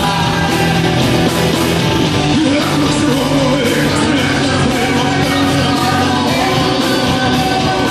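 A rock band playing live on amplified guitars, bass guitar and drums, with singing over the top.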